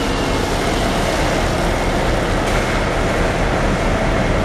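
Steady engine noise from a forklift driving across a concrete wharf, over the continuous running noise of dockside machinery.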